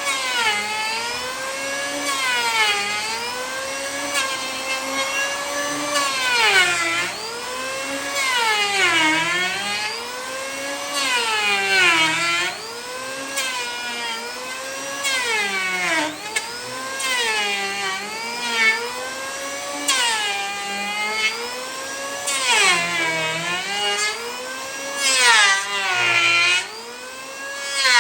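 A power tool's electric motor whining. Its pitch sags under load and climbs back again, about once every two seconds.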